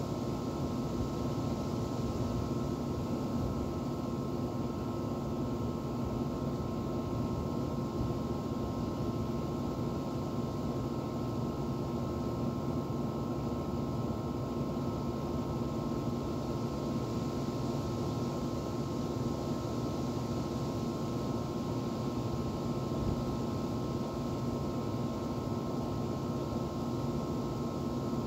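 Outdoor central air-conditioner condenser unit running: a steady machine hum with several held tones over an even fan rush, unchanging.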